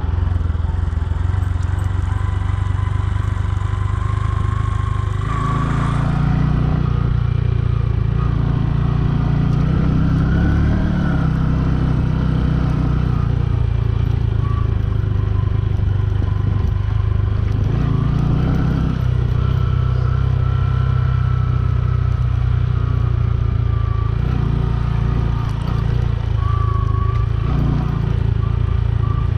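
Bajaj Boxer 150's single-cylinder four-stroke engine running while riding, its pitch rising and falling several times as the throttle is opened and eased off.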